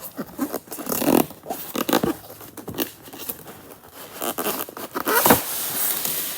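Packaging being handled and pulled open while parts are taken out of a toy car's box: irregular rustling, scraping and tearing sounds, the loudest burst a little after five seconds in, then a steadier rustle.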